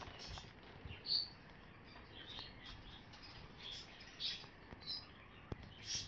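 Short, high chirps from a hummingbird, scattered irregularly, with a single sharp click about five and a half seconds in.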